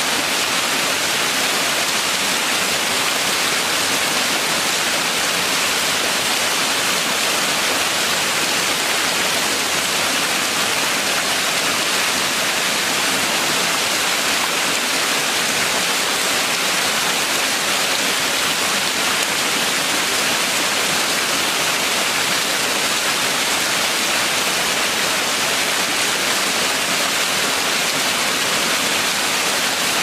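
Small waterfall falling in two strands over rock into a shallow pool: a steady, even rush of splashing water.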